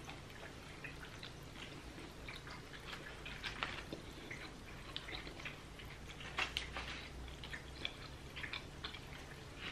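Faint, irregular clicks and crackles of fingers picking through a tray of nacho tortilla chips.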